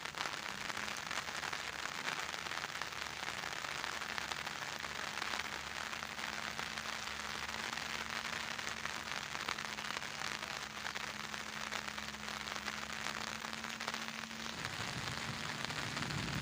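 Steady heavy rain falling, a dense even patter of drops, with a faint steady low hum underneath.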